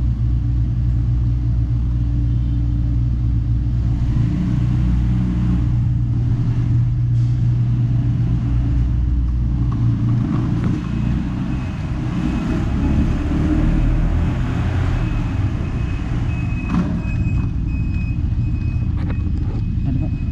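Kymco Like 125 scooter's single-cylinder engine running steadily with a low rumble. A thin steady high tone joins about halfway through.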